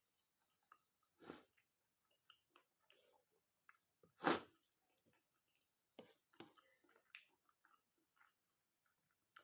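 A person eating chicken curry and rice close to the microphone: quiet chewing and small wet mouth clicks, broken by two short breathy bursts about a second and four seconds in, the second much louder.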